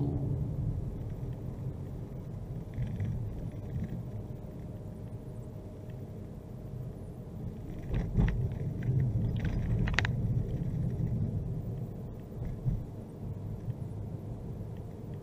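A car driving, heard from inside the cabin: a steady low rumble of engine and road noise, with a few sharp knocks about eight and ten seconds in.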